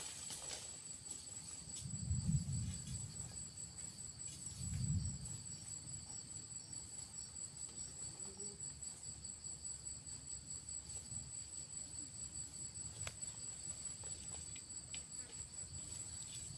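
Insects, crickets or cicadas, trilling steadily in two high, evenly pulsing tones. Two brief low rumbles come through about two and five seconds in.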